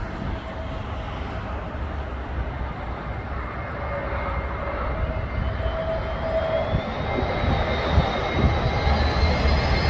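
Airbus A320neo jet engines on approach, growing louder, with a high engine whine that rises in pitch over the second half. Strong wind buffets the microphone underneath.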